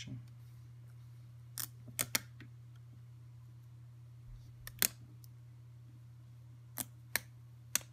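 A dust-removal sticker pressed onto and lifted off an iPhone's glass screen, giving about seven sharp little clicks in small irregular groups. A steady low hum lies underneath.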